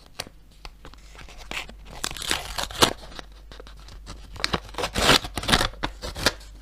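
A handmade paper surprise packet being pulled open: paper tearing and rustling in short scattered bursts, loudest about two and five seconds in.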